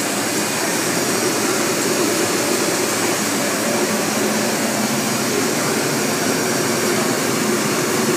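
Steady drone of running machinery: an even, unbroken noise with no rhythm or distinct knocks.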